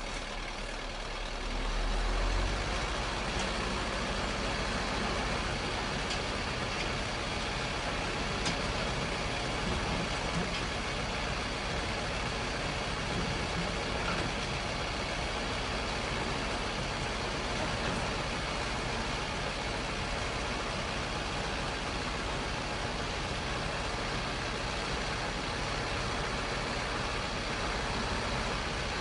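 Large vehicle engine running steadily, a little louder from about two seconds in.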